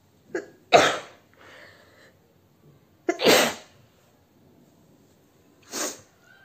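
A woman sneezing three times, about two and a half seconds apart, each a sharp short burst; the third sneeze is weaker than the first two.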